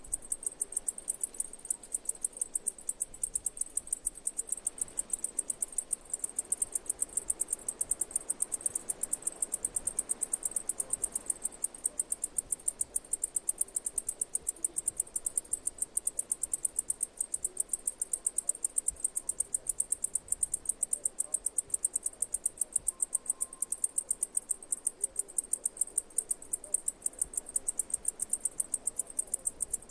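An insect chirping: a steady run of rapid, high-pitched pulses, about five a second, evenly spaced and unbroken.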